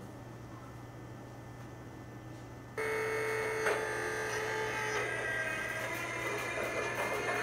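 Model diesel locomotive's onboard electronic sound system switching on about three seconds in, over a low steady hum: a sudden steady electronic tone, a click, then the recorded diesel startup sounds playing through the locomotive's speaker.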